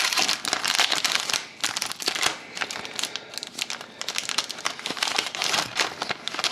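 Wrapper of a 2011-12 Upper Deck SPx hockey card pack being torn open and handled: a dense, irregular run of crackles and rustles.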